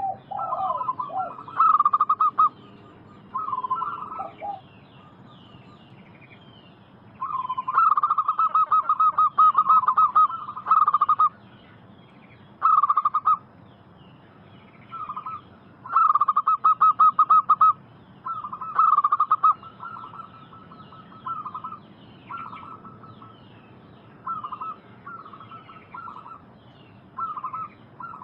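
Zebra doves (perkutut) cooing: phrase after phrase of rapid, pulsed coos, the longest running about four seconds, the rest shorter and more broken. Faint higher chirps run between them.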